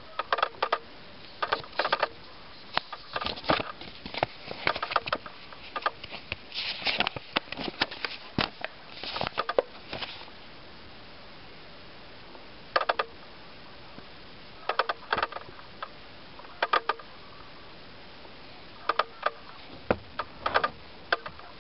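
A folded paper leaflet being opened out and handled: dense bursts of paper crinkling and rustling in the first half, then scattered short crackles as it is held and shifted.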